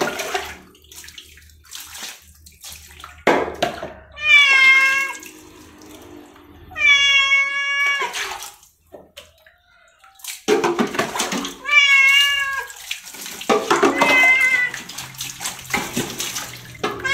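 Domestic cat meowing during a bath: four calls of about a second each, with water poured and splashing between them and another meow starting near the end.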